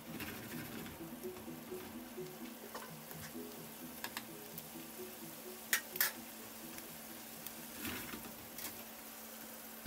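Sauce with pork chops and onions simmering and sizzling softly in a frying pan, with a spatula and spoon scraping and clicking against the pan now and then, twice sharply about six seconds in. Soft background music plays under it.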